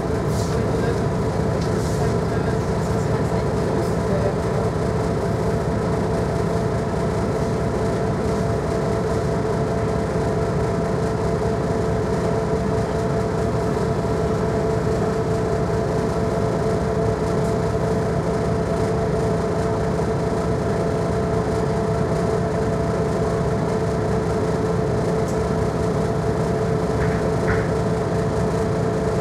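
Inside a Mercedes-Benz O405GN² articulated bus running at a steady pace: an even drone of engine, drivetrain and road rumble with a steady whine running through it, unchanging in pitch.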